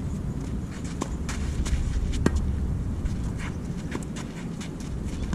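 Tennis rally: sharp pops of the ball off rackets and the court, two clear ones about a second in and just after two seconds, with fainter shoe scuffs and steps on the court in between.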